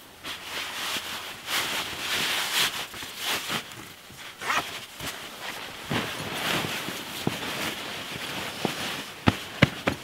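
Fabric rustling as a fleece garment is handled and pushed into a canvas swag onto a crinkly nylon sleeping bag, in a string of irregular bursts. Three sharp clicks near the end.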